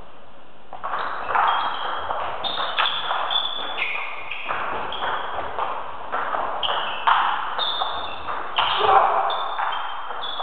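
Table tennis ball clicking back and forth off bats and table in a fast rally, a quick run of hits starting about a second in, echoing in a large hall.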